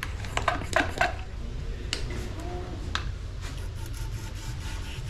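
Sharp clinks and knocks of metal tools and parts being handled on a workbench. Several come close together in the first second, then single ones about a second apart, over a steady low hum.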